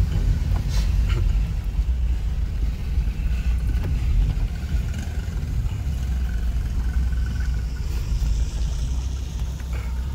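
Steady low rumble of a car's engine and tyres heard from inside the cabin as it drives through a flooded road.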